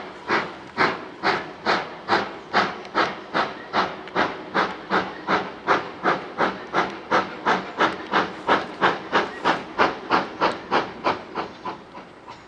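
GWR Manor class 4-6-0 steam locomotive no. 7828 Odney Manor working a train away from a station: sharp, regular exhaust beats from the chimney, about three a second and gradually quickening as it picks up speed, fading out near the end.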